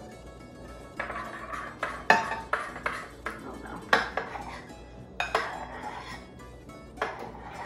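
A metal spoon stirring cooked pasta into thick, sticky cheese sauce in a glass bowl. It knocks and scrapes against the glass about six times at irregular intervals, over quiet background music.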